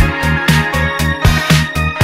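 Upbeat electronic background music with a steady dance beat and a pulsing bass line.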